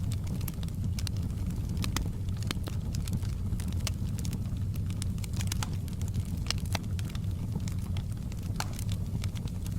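Wood fire crackling, with frequent irregular sharp pops and snaps, over a steady low rush of rain.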